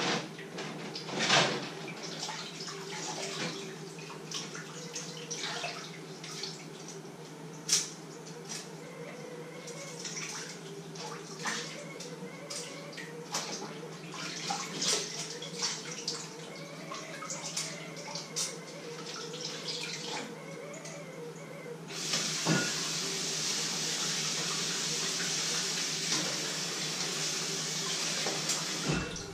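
Kitchen work sounds: scattered clinks and knocks of pans and utensils over a steady low hum. About 22 seconds in, a tap starts running into the sink, runs steadily for about seven seconds, and is shut off just before the end.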